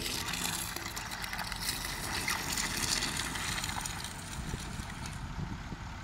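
Diesel engine of a crawler pile-driving rig running steadily as its winch hoists a concrete pile. A hissing noise over it eases about five seconds in.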